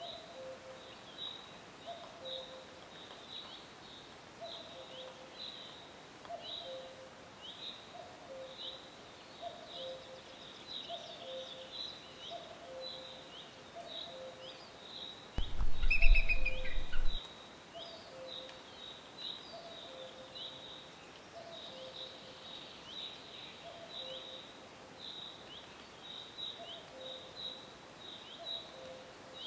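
Birds chirping in short repeated calls, roughly one a second. About halfway through comes a loud low thump with a brief high tone.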